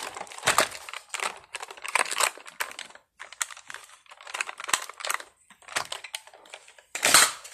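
Irregular plastic clicks and knocks from handling a Buzz Lightyear action figure, its chest buttons pressed and its parts moved, with one louder knock about seven seconds in.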